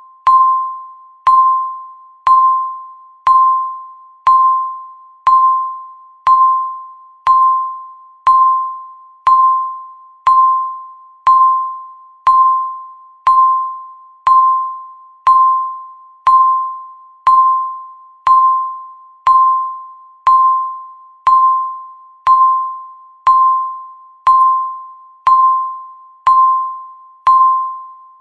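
Countdown timer's electronic beep: one identical bell-like tone each second that sounds sharply and fades before the next, marking every passing second of the countdown.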